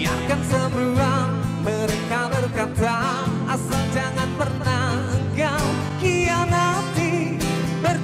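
Live acoustic band music with guitar and bass, and a wavering lead melody that sounds like a singer's voice carrying over it.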